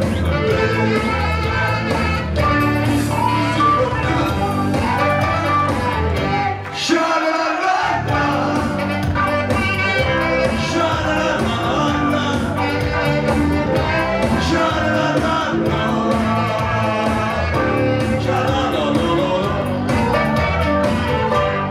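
Dance music with a singer over a bass line and beat. The bass drops out for about a second roughly seven seconds in, then comes back.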